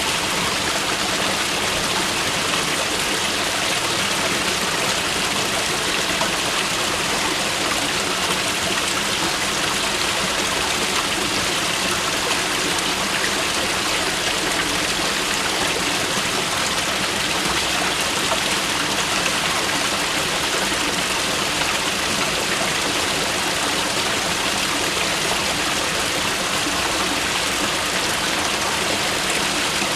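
Mountain river running steadily: a constant rushing of water flowing down over rocks, even and unbroken throughout.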